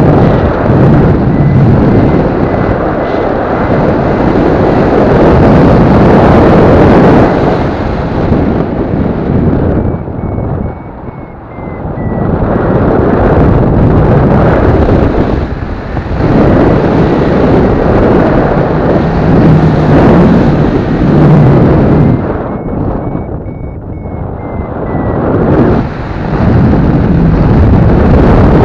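Loud rushing wind from the airflow buffeting the microphone of a paraglider pilot's camera while the glider circles, surging and easing and dipping twice. Underneath, a variometer beeps faintly at a high pitch, its pitch rising briefly twice as the glider climbs.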